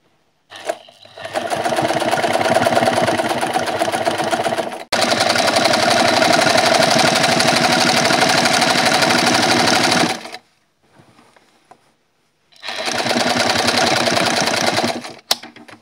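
Sewing machine running at speed, a rapid even clatter of the needle stitching through fabric. It runs for about ten seconds, stops, then runs again for a couple of seconds, with a few sharp clicks near the end.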